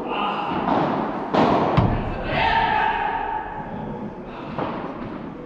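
Padel rackets hitting the ball back and forth in a rally: a series of sharp hits a fraction of a second to a few seconds apart, each echoing in the large hall.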